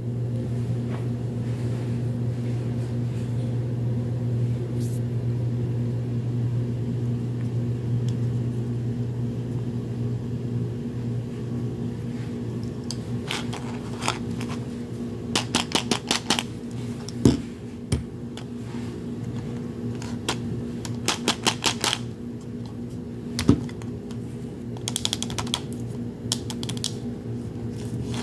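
Plastic-wrapped Mini Brands capsule balls being handled: quick clusters of clicks and crackles from about halfway in, with a couple of heavier knocks, over a steady low hum.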